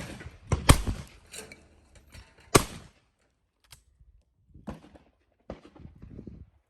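A few sharp knocks with short ringing tails, the loudest about 0.7 s and 2.6 s in, then fainter knocks and clicks later on.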